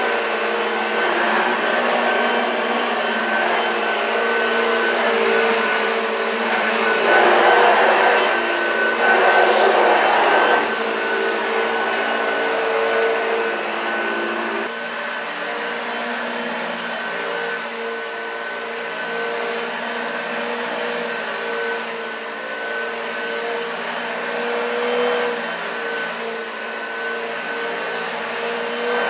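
1986 Hoover Junior U1206 upright vacuum cleaner running, a steady motor hum with a high whine over it. It gets louder and rushier for a few seconds about a quarter of the way in, and its note changes slightly about halfway through.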